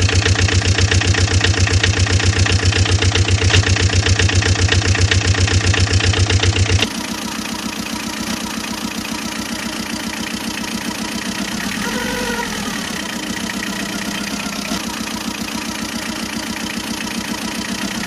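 Dubbed-in truck engine sound effect: a fast, even, heavy chugging run that switches abruptly about seven seconds in to a lighter steady engine sound. A brief rising-and-falling whine comes around twelve seconds in and again at the end.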